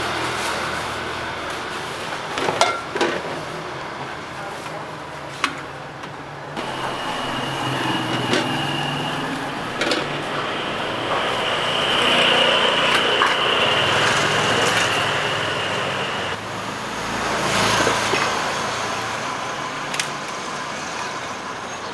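Street traffic passing, the noise swelling and fading a couple of times, with a few sharp knocks and metal clanks as a pot, a metal table and an umbrella are moved about.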